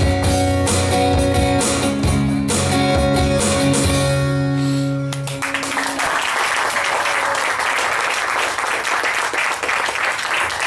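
Live band with guitar, keyboard and electric drums playing the final chords of a song, which ring out and stop about five and a half seconds in. Audience applause follows.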